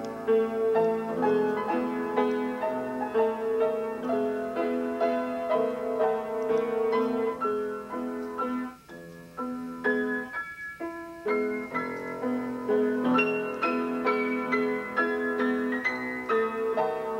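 Grand piano played by hand: a slow tune of notes and chords, with a brief softer lull about nine seconds in.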